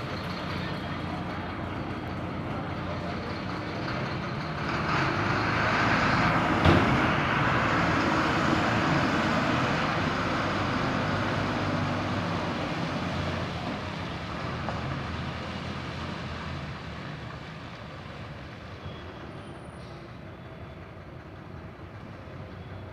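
Bus engine running and growing louder about five seconds in as the bus pulls out. A single sharp clack comes about seven seconds in. The engine then fades steadily as the bus drives away.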